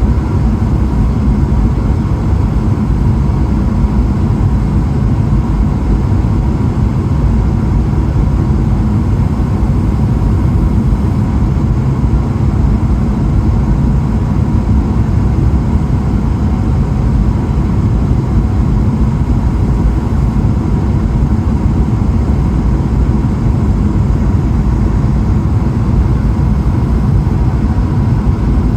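Steady, heavy low roar inside the cabin of a Boeing 777-300ER in flight: engine and airflow noise, with a faint steady whine above it.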